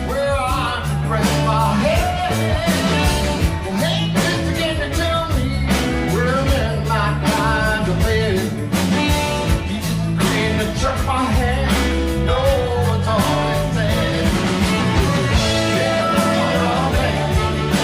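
Live band playing a rock and roll song with a singer, guitar, bass and drums keeping a steady beat.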